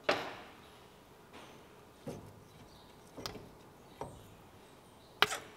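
About five sharp clinks and knocks of steel axle parts, spaced a second or so apart, the loudest at the very start and near the end, as the knuckle spindle of a Nissan Patrol GU front axle is worked off the steering knuckle over the CV shaft.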